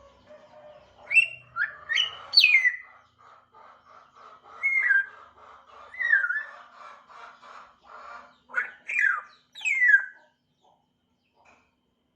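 African grey parrot whistling and chattering: loud whistles that slide downward, repeated several times, over a quick pulsing chatter. The calls stop about ten seconds in.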